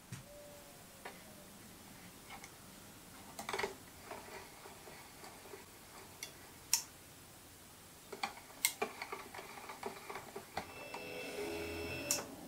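Lathe power-feed and auto cut-off mechanism clicking and ticking: a scattered series of sharp mechanical clicks. Near the end the feed's stepper motor whines briefly and stops with a click.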